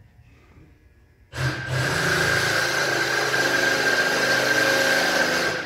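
A loud, steady mechanical noise starts abruptly about a second in: a hiss spread across the range with a held whine and a low hum under it. It drops away near the end.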